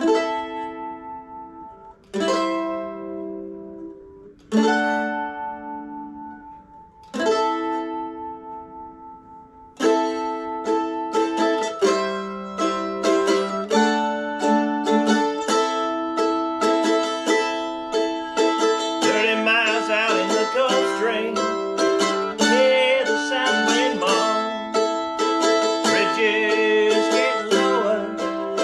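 Solo mandolin, a handmade instrument from a small builder. It opens with four strummed chords that ring out and fade, each about two and a half seconds apart. About ten seconds in it moves into a steady, quickly picked melody with fast tremolo passages.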